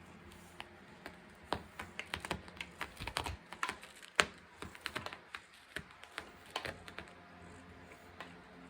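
Cat's claws raking and snagging in a carpet: a quick, irregular run of sharp clicks and small tearing sounds, thickest from about one and a half to seven seconds in, with one louder snap about four seconds in.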